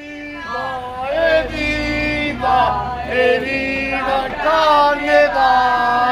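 A group of voices singing a chant-like song together, with long held notes.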